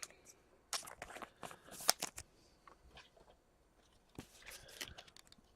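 Trading cards and their packaging being handled: a scatter of light crinkles and clicks, in one spell about a second in and another near the end.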